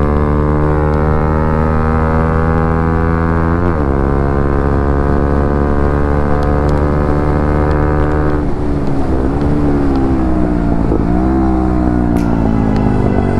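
Bajaj Pulsar NS125's single-cylinder engine running through an aftermarket Akrapovic exhaust under way. The engine note climbs slowly and dips briefly about four seconds in, then holds steady. After about eight seconds it falls away, then rises twice more near the end.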